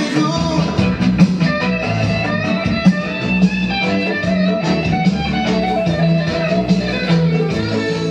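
Background music led by guitar, with a bass line and a steady beat.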